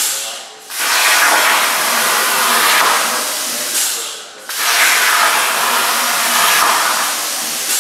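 Hypertherm Powermax85 plasma torch cutting steel plate on a CNC plasma table: a loud, steady rushing hiss of the arc and air. It cuts off briefly about half a second in and again about four seconds in, and each time the arc fires again for the next cut, the second time suddenly.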